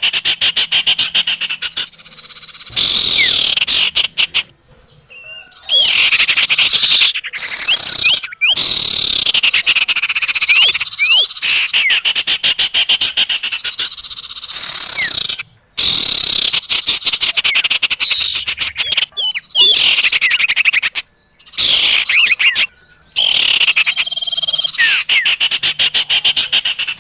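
Bird-lure recording of sirtu and common iora (cipoh) calls: fast buzzing trills run together with short, sharp whistled notes. Each stretch is broken by a brief pause before the next begins, and the sequence seems to loop.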